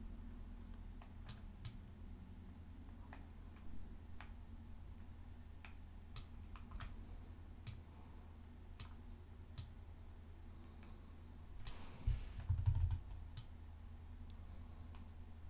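Faint, irregular computer clicks from a trackpad and keyboard as short brush strokes are clicked and dragged, over a low steady hum. About twelve seconds in there is a brief louder rustle with a low thump.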